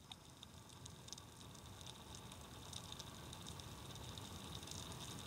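Faint underwater ambience: a low watery wash with scattered small crackles and clicks, slowly growing louder.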